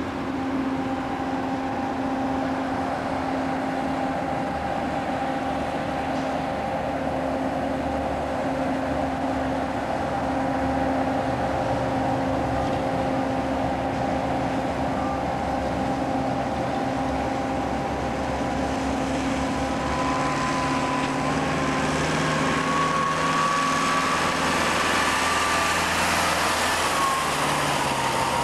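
Steady drone of construction-site machinery with a constant hum. In the last third a concrete mixer truck's diesel engine grows louder, with a faint whine that rises and falls in pitch.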